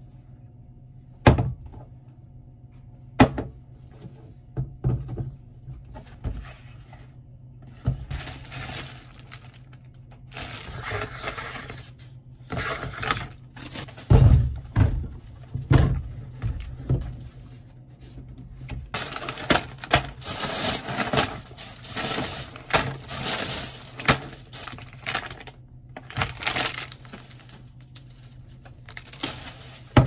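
Bottles and jars set down one after another on a stone kitchen countertop, giving sharp knocks and thunks, with stretches of rustling in between as groceries are unpacked.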